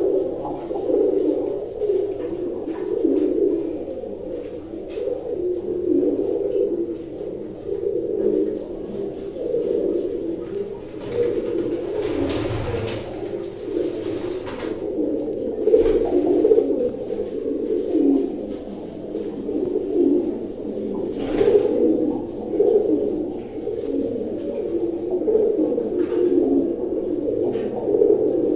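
Domestic pigeons cooing without pause, a low, warbling coo that rises and falls in waves.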